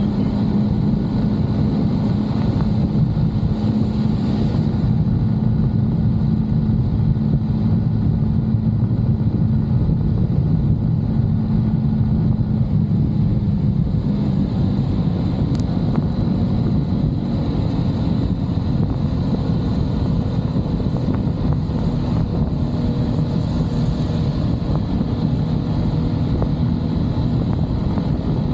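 A vehicle running at a steady road speed, heard as a continuous engine hum with road and wind noise. The hum drops slightly in pitch about halfway through.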